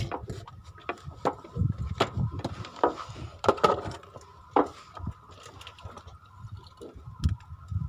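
Irregular knocks and clatters on wood, a dozen or so sharp strikes mixed with duller thumps, over a faint steady high whine.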